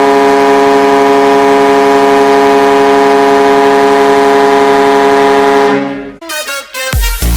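Ice hockey goal horn sounding one long, steady blast that cuts off about six seconds in. Electronic dance music, the goal song, starts right after it, and a heavy bass beat comes in near the end.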